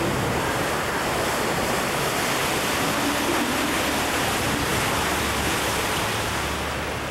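Steady rushing noise of wind and water on a moving canal tour boat, with a low steady hum of the boat's engine underneath.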